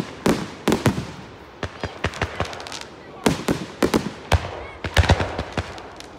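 Aerial fireworks going off overhead: a rapid series of sharp bangs and crackles, coming in several clusters, as shells rise and burst into showers of stars.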